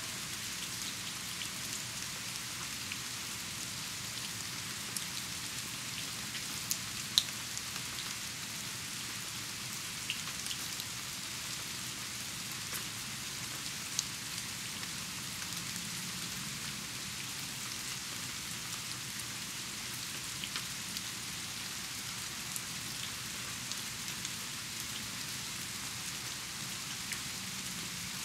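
Steady rain falling: an even hiss with scattered louder drops striking close by, the sharpest about seven seconds in.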